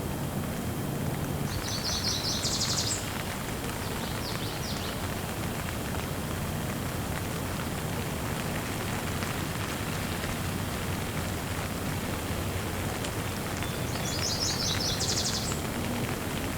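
Light rain falling steadily, an even hiss of rainfall. A bird's quick, high chirping trill breaks in about two seconds in, briefly again a little later, and once more near the end.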